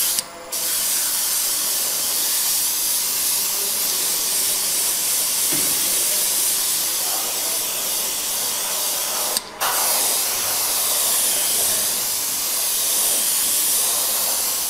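Airbrush spraying paint at about 2 bar: a steady high-pitched hiss of air and paint that cuts out briefly twice, just after the start and about two-thirds of the way through.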